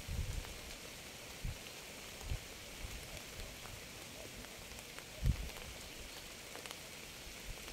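Steady rain hiss, with a few heavy drops landing as short low thuds; the loudest comes about five seconds in.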